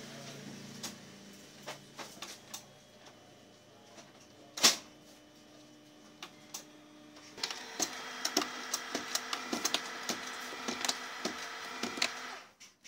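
HP LaserJet Pro MFP M177fw colour laser printer going through its start-up cycle. A few sharp clicks and one loud click about four and a half seconds in; from about seven seconds a motor runs with a steady hum and rapid ticking of gears for about five seconds, then stops suddenly. This start-up cycle ends in the printer's 54.2 error, which the technician puts down to a sensor not sitting in its proper position.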